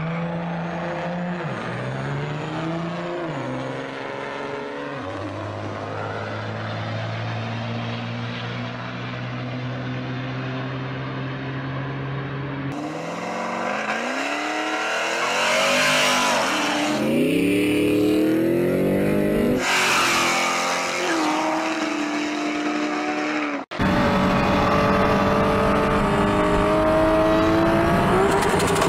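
Car and truck engines at full throttle in drag races, pitch climbing and dropping back at each gear change. About thirteen seconds in the sound changes abruptly to a louder pair of engines revving up through the gears. About twenty-four seconds in it changes again to a single engine held at high revs.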